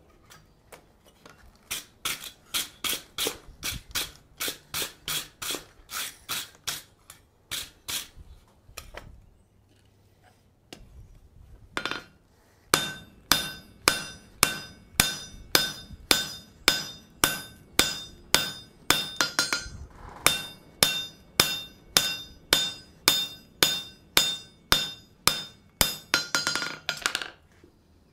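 Hand hammer forging a red-hot steel blank held in tongs on an anvil. There are two runs of steady blows, about three a second, with a pause of a few seconds between. In the second, longer run each blow has a short metallic ring.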